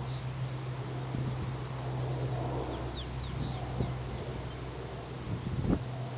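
Yellowhammer giving two short, high chirps about three and a half seconds apart, with a few faint notes between them, over a steady low hum and low wind rumble.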